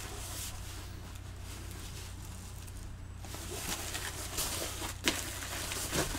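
Faint rustling and crinkling of plastic and foam packing as a wrapped guitar is handled in its cardboard box, with a few sharper rustles in the second half, over a steady low hum.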